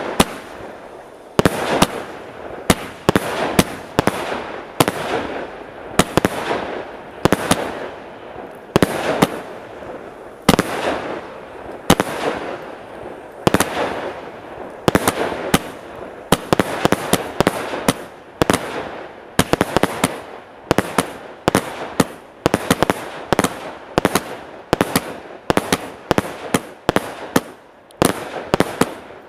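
A 49-shot, 20 mm Hyperglow consumer firework cake firing shot after shot: sharp reports about one to two a second, coming faster in the second half, with a noisy haze of bursting between them.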